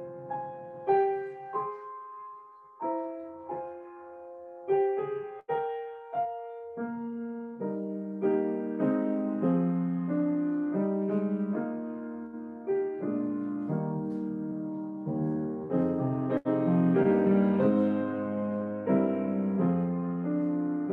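Solo piano playing a slow, gentle piece: single ringing notes at first, then fuller chords from about seven seconds in.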